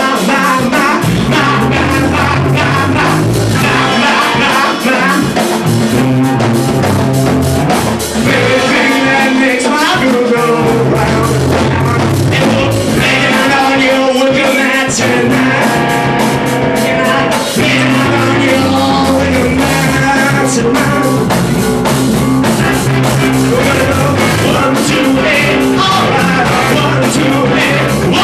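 A rock band playing loud and live: distorted electric guitar through a Marshall amp with vocals sung into a microphone over it, the music dense and unbroken throughout.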